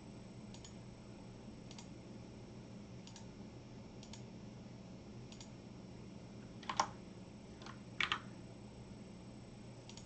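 Scattered clicks of a computer mouse and keyboard over a faint steady hum. The clicks come faintly about a second apart at first, then a few louder ones come about two-thirds of the way through.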